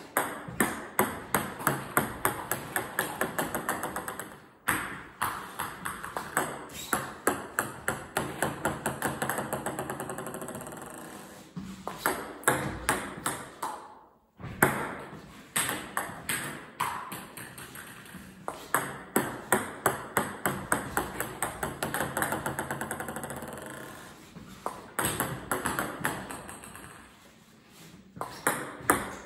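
Table tennis balls bouncing after backspin serves: each run of sharp clicking bounces gets quicker and fainter over a few seconds as the ball comes to rest, and a new run starts several times over.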